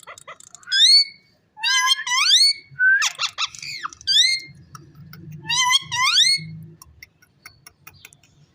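Indian ringneck parakeet giving a quick series of short whistled calls that sweep sharply upward in pitch, with one harsher, raspier call about three seconds in.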